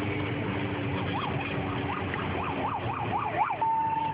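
Electronic siren wailing in quick up-and-down yelps that speed up, then switching to a steady held tone near the end.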